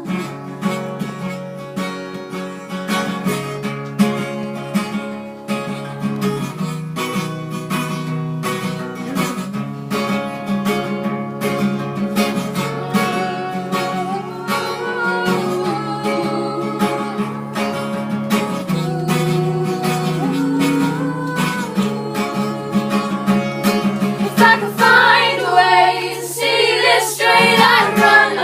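Acoustic guitar playing an instrumental passage of a song, plucked and strummed over a steady low held note. Wordless singing comes in near the end.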